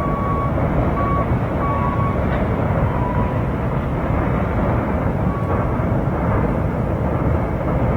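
Freight train cars rolling past in a steady rumble of wheels on rail, with several brief high-pitched squeals now and then.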